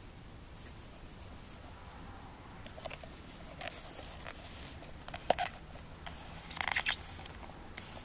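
Condor Mini Duku parang being handled in its leather sheath and drawn out: scattered scrapes and rubs of leather, one sharp click about five seconds in, then a short scraping of the carbon-steel blade against the leather near the end.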